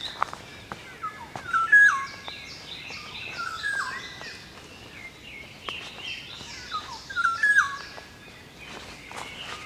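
Songbirds singing in woodland. One bird repeats a short whistled phrase of a few stepped notes about every two seconds, over a steady chorus of higher chirps from other birds.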